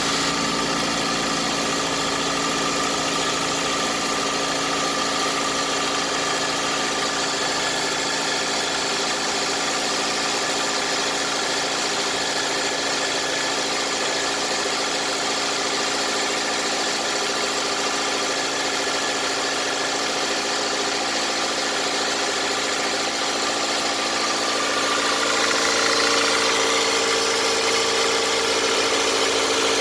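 Toyota 1AZ-FE 2.0-litre inline-four petrol engine running steadily, with the beginnings of a knock in the piston and connecting-rod group of cylinder 4 after about 400,000 km. About 25 seconds in it grows a little louder.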